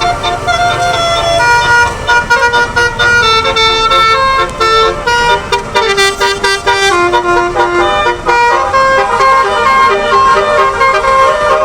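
Bus telolet horn (basuri multi-tone air horn) playing a tune: several horn notes sound together and step up and down in pitch a few times a second.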